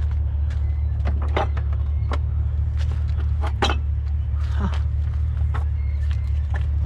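Vehicle engine idling with a steady low hum, over which items are knocked and clacked together a handful of times, tapped to hear whether they are metal.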